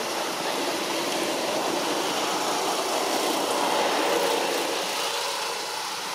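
Steady rushing background noise with no clear tones, swelling about three to four seconds in and easing off near the end.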